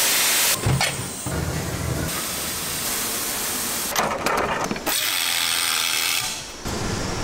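A quick succession of factory sounds that change abruptly: first a hiss of release agent sprayed onto a metal mould, then machine running noise, and later a power screwdriver fastening a frying-pan handle.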